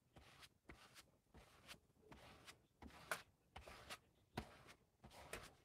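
Faint, irregular rustling and light taps of sheets of painted paper being handled and shifted on a desk.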